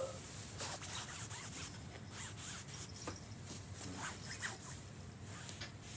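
Rustling and scratching on a quilted bedspread, in many short rubbing strokes, as a hand moves under the cover to tease a cat.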